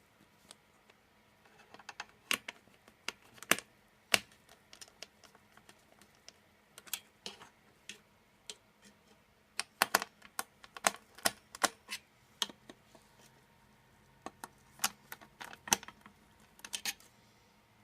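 Irregular sharp plastic-and-metal clicks and taps of a CPU and its cooler being fitted into the motherboard socket by hand, coming in clusters with pauses between them. The loudest click is about four seconds in. A faint steady hum lies underneath.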